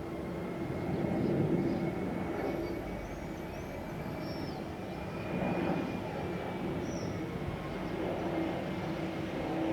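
Airbus A321-211's CFM56 turbofan engines running: a steady rumble with a constant low hum and a faint high whine, swelling slightly a couple of times.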